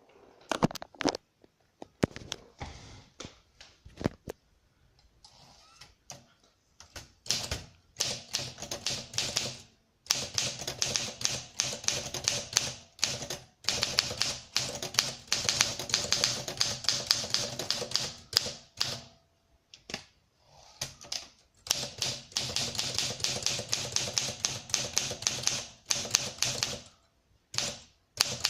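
Olympia SM4 manual portable typewriter being typed on: scattered key strikes at first, then rapid, continuous typing from about eight seconds in, broken by a couple of short pauses.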